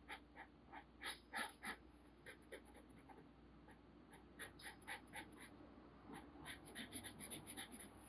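Felt-tip marker scratching on paper in quick short strokes, about three or four a second, as an area is coloured in. The strokes come in two runs with a quieter gap in the middle.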